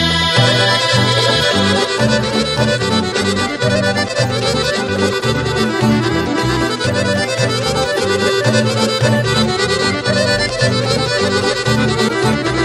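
Traditional folk dance music with held melody tones over a steady, regular bass beat.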